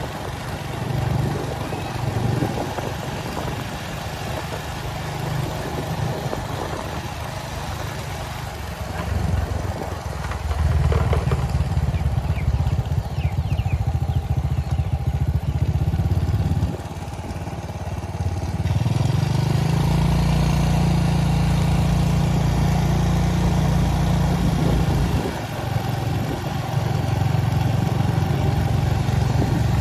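Motorcycle engine running, its low rumble swelling and easing several times.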